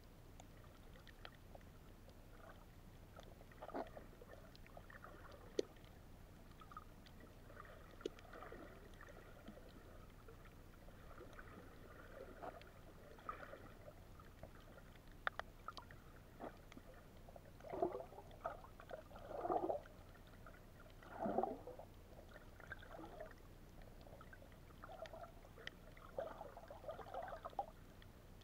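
Water gurgling and sloshing around an underwater camera, faint, with scattered small clicks and a few louder gurgling bursts about two-thirds of the way through.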